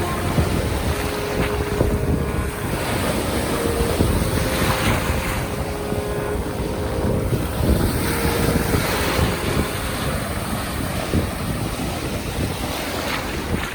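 Sea waves washing onto the shore, swelling and falling back several times, with wind buffeting the microphone as a steady rumble.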